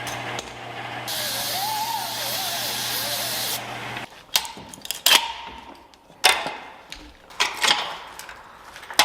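A steady hum with a loud spraying hiss for a couple of seconds, like an air tool or blow gun on compressed air; both cut off about four seconds in. Then come five sharp metal-on-metal clanks, irregularly spaced.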